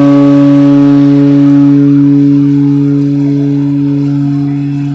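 Ship's horn sounding one long, low, steady blast that slowly weakens in the second half.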